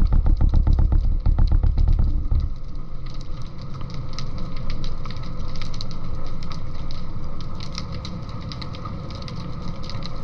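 Underwater audio of a motor: a deep rumble that pulses evenly at about eight beats a second, which cuts off about two and a half seconds in. It leaves a hiss with scattered faint crackling clicks.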